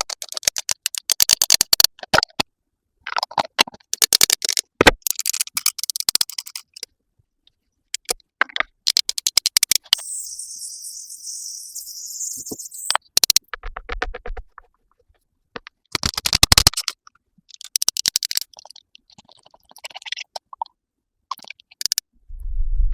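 Close-up ASMR makeup sounds on a watermelon: repeated bursts of scratchy brushing and tool strokes with short pauses between, and a steady high hiss for about three seconds in the middle.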